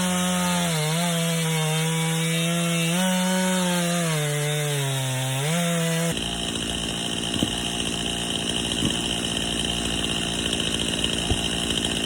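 Stihl Farm Boss two-stroke chainsaw running at high revs and cutting a log; its pitch sags twice as the chain loads up in the cut and climbs back. About six seconds in the sound changes abruptly to a steadier, noisier saw sound with a few sharp clicks.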